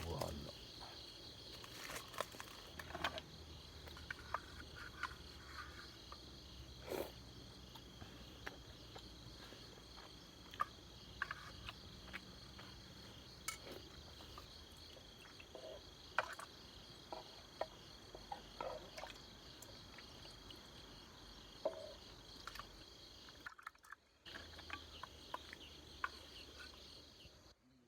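Insects, crickets among them, chirping in a steady high-pitched chorus, with scattered faint clicks and taps over it.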